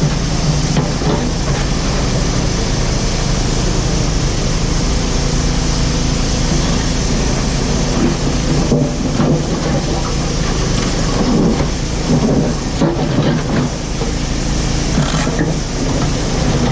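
JCB 4CX backhoe loader's diesel engine running steadily under load, with irregular scraping and knocking from about eight seconds in as the bucket breaks up asphalt.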